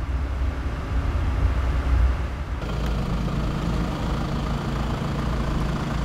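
A car's engine running as the car drives off, a steady low rumble that grows fuller about two and a half seconds in.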